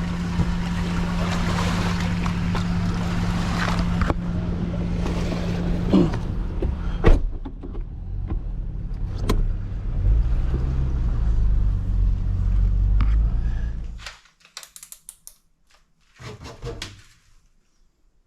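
An engine running steadily, with a few knocks over it, that cuts off suddenly about fourteen seconds in. After it come a few light clicks and a short rustle.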